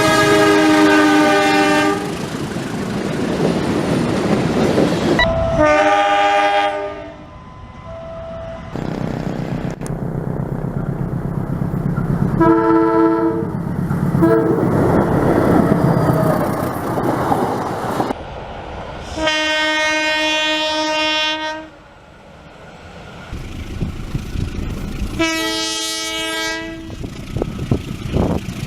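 Indonesian diesel locomotives' multi-tone air horns sounding the long Semboyan 35 signal, five separate blasts of about two seconds each, with a train rumbling and wheels clattering on the rails between them.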